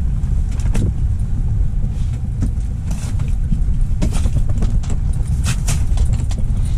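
Strong wind buffeting the microphone: a loud, steady low rumble, with scattered sharp ticks over it.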